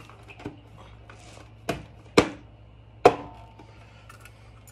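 A motorcycle side cover being pressed back on and snapping into place: a few sharp snaps and knocks, three loud ones spaced about half a second to a second apart, the last with a brief metallic ring.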